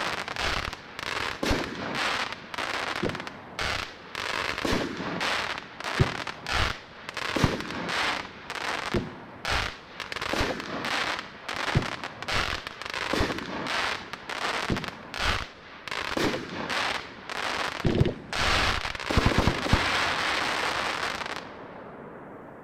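"Double Tap" consumer fireworks cake firing a rapid string of shots, about two a second, with hissing crackle between them. Near the end it builds into a dense crackling finale that dies away about a second before the end.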